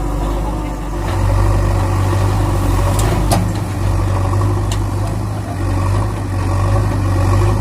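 Tractor engine running steadily at idle, a low drone that grows louder about a second in, with a few sharp clicks in the middle.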